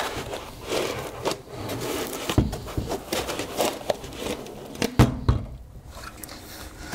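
Foam packing blocks rubbing and scraping against a 3D printer's plastic frame as they are slid off, with many small clicks and two sharp knocks, about two and a half and five seconds in.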